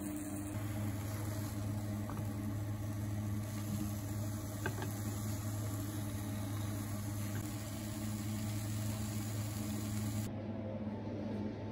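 Steady low hum of kitchen appliances running during stovetop cooking, with a faint even hiss and a few light clicks.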